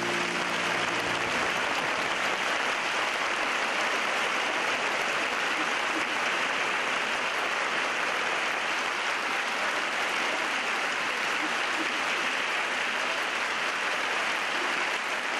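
Large crowd applauding steadily, a hall full of people clapping. The tail of the preceding music fades out in the first second or so.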